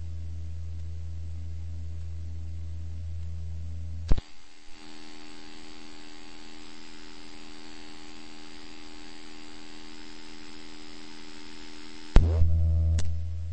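Steady electrical mains hum on an old lecture recording, with no speech. A sharp click about four seconds in cuts the hum, leaving faint hiss and a few thin steady tones. Near the end another click brings the hum back louder, with one more click just after, at a point where the recording is cut and rejoined.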